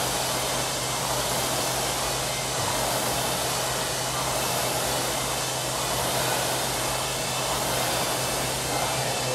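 Rowing machine's flywheel fan whooshing steadily as it is rowed hard, with a constant low hum underneath.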